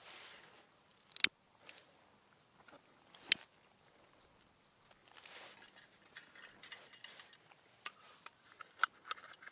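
A lighter struck twice, two sharp clicks about two seconds apart, lighting a candle. After that come small metallic clicks, clinks and rustles as the UCO candle lantern is handled and its chimney and housing are slid back together around the lit candle.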